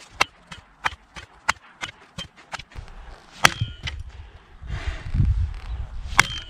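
The 1055 carbon steel head of a Cold Steel pole axe striking at ground level: a quick run of light, sharp knocks, then two heavy strikes, one about halfway through and one near the end, each followed by a brief metallic ring.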